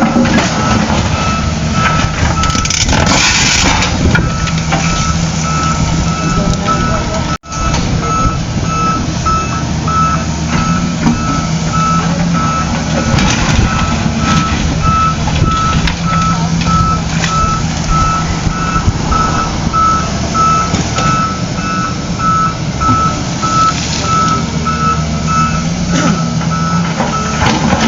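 Reversing alarm of a heavy construction vehicle beeping at an even rate over the vehicle's diesel engine running, with the sound cutting out briefly about seven seconds in.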